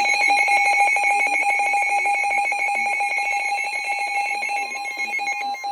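Loud electronic alert tone between two emergency warning messages: a steady tone near 850 Hz with higher tones above it and a rapid, even pulsing. It slowly gets quieter and starts breaking into short pulses at the very end.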